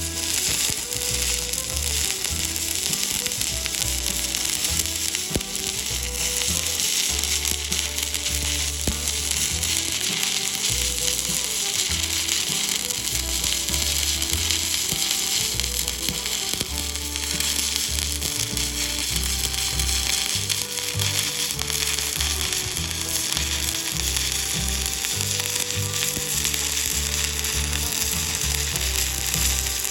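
Stick (shielded metal arc) welding on steel: the electrode's arc gives a steady crackling sizzle that runs on without a break.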